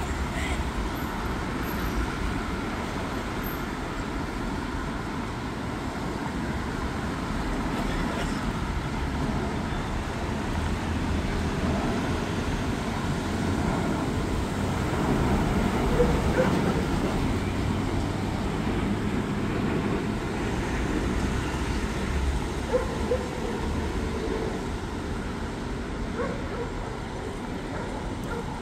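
Steady road traffic noise from cars passing through a city intersection: a low rumble of engines and tyres that swells around the middle and eases toward the end.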